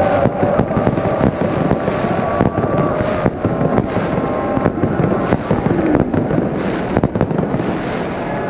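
Fireworks and firecrackers crackling and banging in quick, dense succession over the noise of a large crowd.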